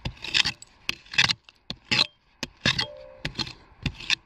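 Small hand pick digging into hard ground, giving an irregular run of sharp scrapes and clinks, several a second at times.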